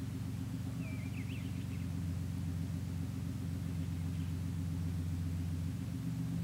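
Steady low droning hum of an idling engine, with a few bird chirps about a second in.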